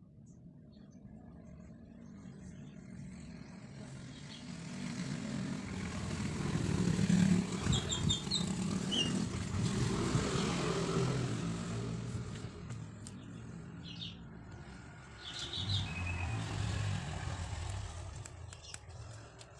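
A motor vehicle passing by, its engine and road noise swelling to a peak about seven seconds in and slowly fading away. A few short bird chirps sound over it.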